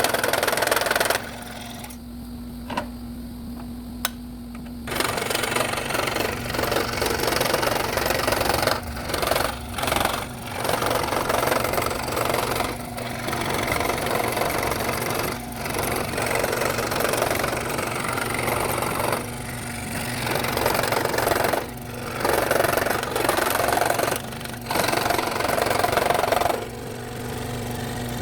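Scroll saw running, its blade cutting through wood with a steady low motor hum underneath. The cutting noise drops away several times, longest about a second in for a few seconds, while the saw keeps running.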